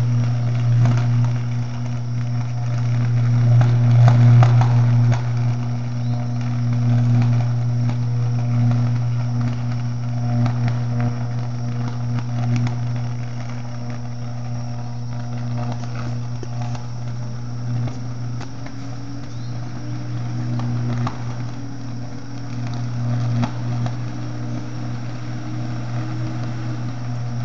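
High-voltage electrical arc at a substation tower: a loud, steady low electrical buzz with scattered crackles, the sound of the line arcing and burning, loudest about four seconds in.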